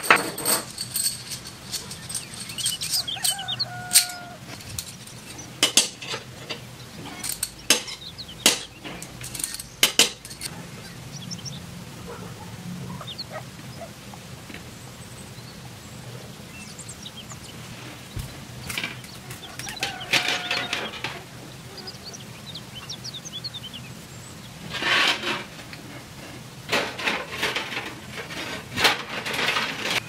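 Thin copper tubes clinking and tapping against each other as they are handled and laid in place, in scattered sharp clicks, with a few short pitched calls in the background.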